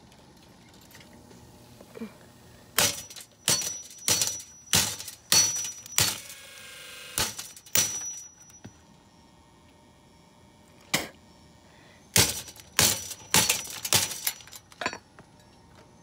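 A metal Lasko box fan being struck again and again, its sheet-metal housing and wire grille clanging with a brief metallic ring after several blows. There are two runs of about half a dozen hits, separated by a single blow and a pause of a few seconds.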